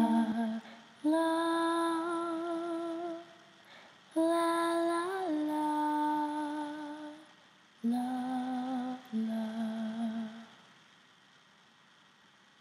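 A woman's voice singing a cappella, three long held notes with vibrato and no words, the middle one lifting briefly and then dropping. The voice stops about ten and a half seconds in, leaving faint room tone.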